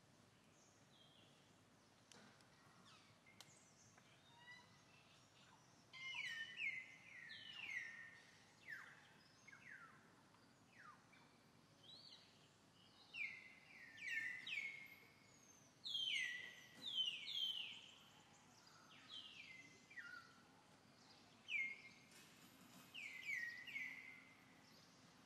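Birdsong: short falling whistled notes, repeated in groups of two or three, begin about six seconds in and carry on over faint outdoor background noise.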